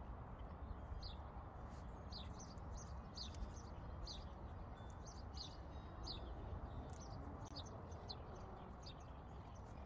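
Small birds chirping: short, high chirps about two a second, over a steady low background rumble.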